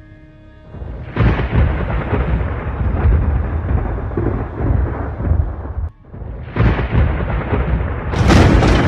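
Thunder sound effect: a long, loud crash of noise starting about a second in, a short break near six seconds, then a second crash with a sharper, brighter crack near the end.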